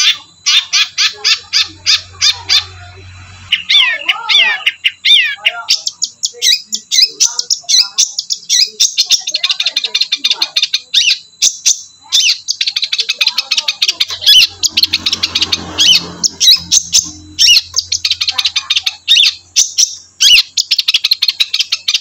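Caged long-tailed shrike (cendet) singing: rapid, nearly unbroken runs of sharp, high chattering notes, several a second, with a few lower sliding phrases about four to five seconds in.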